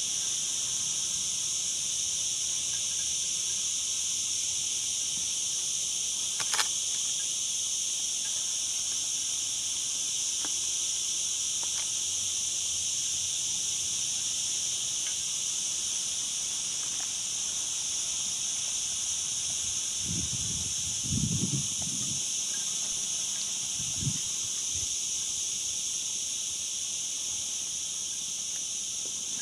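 Steady, high-pitched chorus of insects that never lets up. A sharp click about six seconds in and a few low thumps later on stand out briefly against it.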